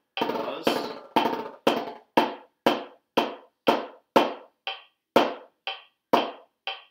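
Snare drum played with sticks in single strokes and buzz strokes against a metronome clicking twice a second. A buzz stroke smears out in the first second; later the drum strokes fall on every other click.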